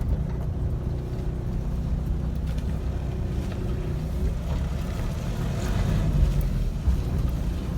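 Steady low engine and road rumble of a moving vehicle, heard from on board.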